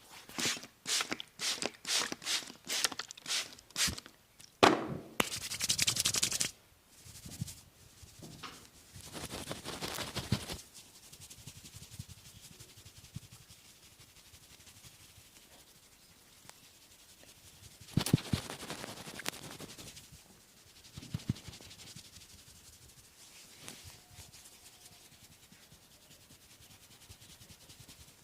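Hands rubbing and stroking skin during a back massage: a quick run of about ten rhythmic strokes, one sharp smack about five seconds in, then several longer rubbing passes with short pauses between.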